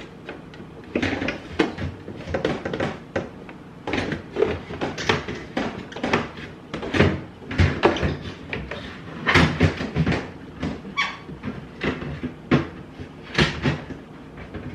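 Rapid, irregular knocking and clattering, about two or three knocks a second.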